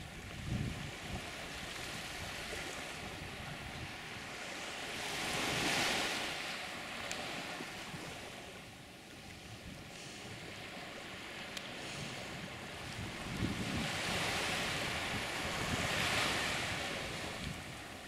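Small ocean waves washing up onto a sandy beach, the surf noise swelling twice, about ten seconds apart, with wind rumbling on the microphone.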